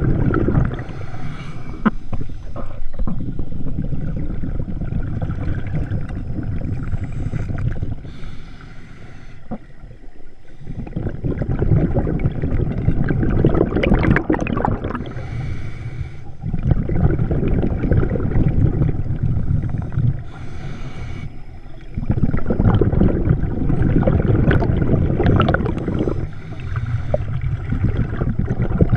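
Scuba diver breathing through a regulator underwater, heard through a camera housing. A short hiss marks each breath in, about every six seconds, followed by a long low rumble of exhaled bubbles.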